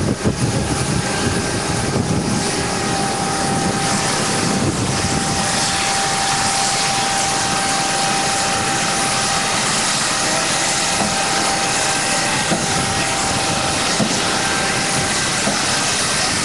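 Steady aircraft engine noise, a continuous rush with a thin steady whine in it, growing brighter about six seconds in.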